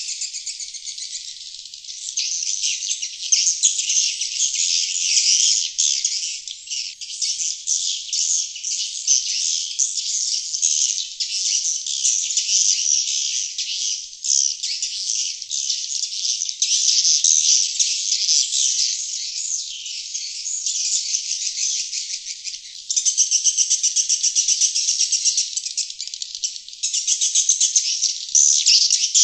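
Sriti (glossy swiftlet) outdoor lure call: dense, rapid, high-pitched chittering twitters, running continuously with a few brief dips. It is the call played to attract wild sriti swiftlets to a nesting house.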